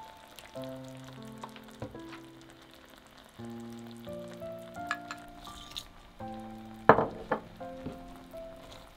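Milk-and-cream sauce sizzling and bubbling in a frying pan as liquid and a spoonful of sauce go in, with two sharp knocks about seven seconds in. Soft background music with slow held notes plays throughout.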